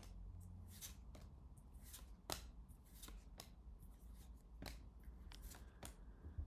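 Trading cards being handled and slid one past another by hand: faint, irregular soft flicks and rustles of card stock, over a low steady hum.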